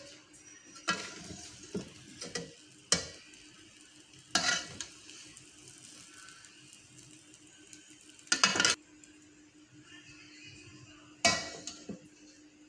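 Slotted metal spatula stirring cooked rice in a metal pot, with a handful of sharp clanks and scrapes against the pot, the longest and loudest about two-thirds of the way in, over a faint steady hum. The rice is being fluffed after its steaming (dum).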